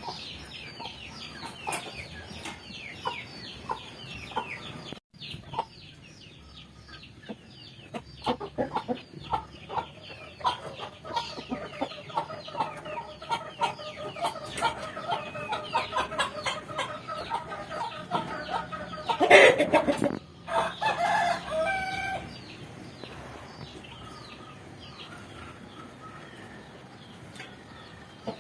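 Village chickens clucking steadily, mixed with many short, high, falling peeps. About two-thirds of the way through, a rooster crows once, loudly, for about three seconds.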